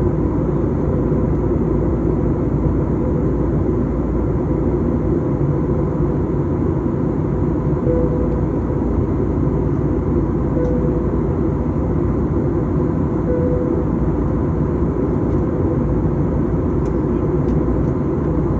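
Steady low rumble of engine and air noise inside an aircraft cabin, with a faint even hum over it.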